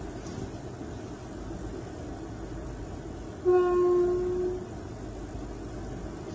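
A locomotive horn sounds one steady, single-pitched blast lasting a little over a second, about halfway through. Beneath it runs the low, steady rumble of a stationary road vehicle.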